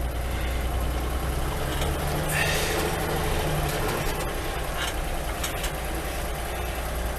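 1962 Chevrolet K20 pickup's engine running steadily at low speed as the truck is driven slowly, with a few sharp clicks or knocks.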